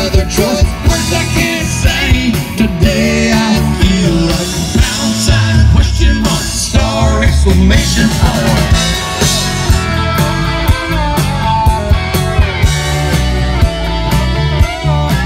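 Live country-rock band playing loudly through an instrumental break between verses, with electric guitar playing lead lines over bass and drums.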